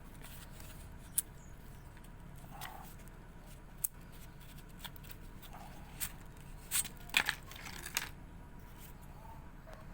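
Handling noises of a celurit sickle and its thick cowhide sheath: scattered sharp clicks and short scrapes, the loudest cluster around two thirds of the way through, as the blade is taken out and handled.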